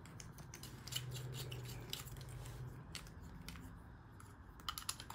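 Faint, irregular small metallic clicks and scrapes as a laser pointer pen's metal cap and body are unscrewed and handled.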